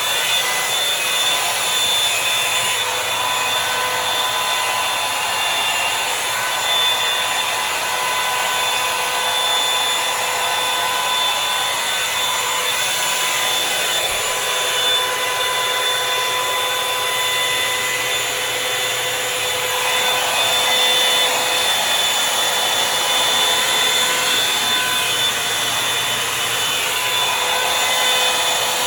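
Revlon One Step Volumizer hot-air brush running steadily: a rush of air with a thin motor whine on top, the whine fading out and back in now and then.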